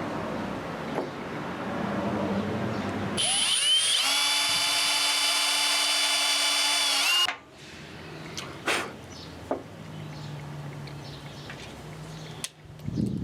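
Power drill in a woodworking setup: a rough working noise for about three seconds, then a loud, steady high whine as the motor spins up, cutting off abruptly about seven seconds in, followed by a few light clicks and knocks.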